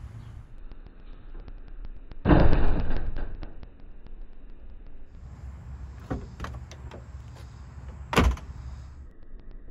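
Toyota MR-S door being worked on its newly fitted, tight door bushing: a loud dull clunk about two seconds in, a few sharp latch clicks, then the door shut hard with a sharp slam about eight seconds in.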